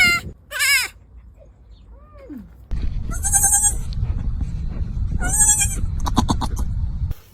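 Goats screaming in high, wavering, human-like calls. Two short screams come at the start, then two longer ones a few seconds later and a quick stuttering call near the end, over a low rumble.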